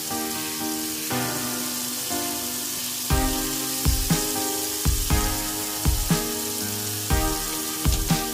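Chicken breasts sizzling in oil in a nonstick frying pan, a steady hiss, under background music with a beat about once a second.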